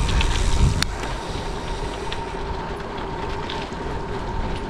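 Steady rumbling wind and road noise of a bicycle riding along a road, with a thin steady whine underneath and a sharp click a little under a second in.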